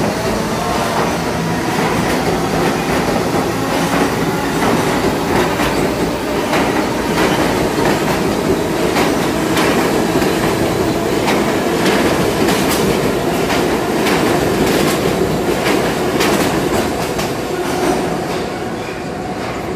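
Subway train passing through an underground station at speed: a steady, loud rumble with the clickety-clack of wheels over rail joints, easing off near the end as the last car goes by.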